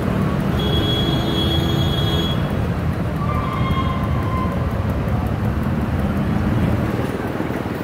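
A small toy-car merry-go-round turning, giving a steady low rumble, with a few brief held tones over it in the first half.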